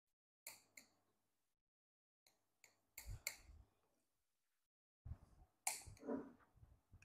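Knife blade clicking and tapping against a ceramic plate while cutting through a biscuit cake: a few sharp, scattered clicks, then a busier run of taps and scrapes about five seconds in.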